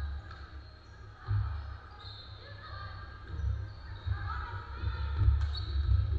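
A basketball bouncing on a hardwood gym floor as a player dribbles and drives, with thuds coming more often in the second half, under voices in a large gym.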